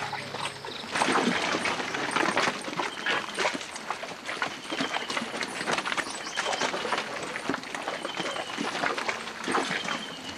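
Elephants walking through forest undergrowth: steady irregular crackling and snapping of brush, twigs and leaves under their heavy footsteps.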